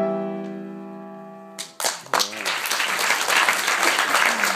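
A grand piano's final chord rings out and fades, then a knock, and about two seconds in the audience breaks into steady applause.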